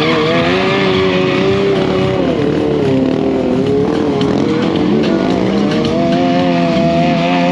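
Sportbike and sport ATV engines revving hard during stunt riding, the pitch wavering up and down, sagging about two seconds in, then climbing and held high from around six seconds as a motorcycle is ridden on its back wheel.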